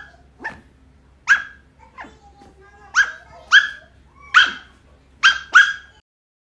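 Shetland sheepdog puppy barking: about eight short, sharp, high-pitched barks, some in quick pairs.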